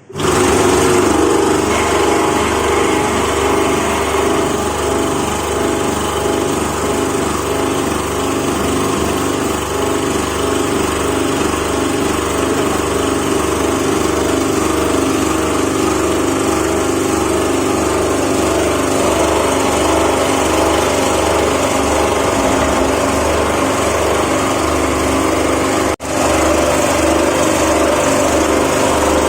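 Vibrating flour sieve machine running, a steady mechanical hum with a fast rhythmic shaking from its vibration motor. It drops out for a moment about 26 seconds in.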